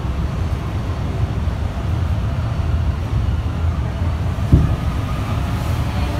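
Cabin noise inside an Alstom NS-93 rubber-tyred metro car running at speed: a steady low rumble, with a single thump about four and a half seconds in.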